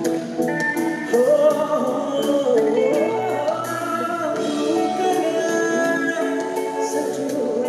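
Live band music with a male singer singing into a microphone, his melody sliding and bending, over drums with regular cymbal strokes and backing instruments.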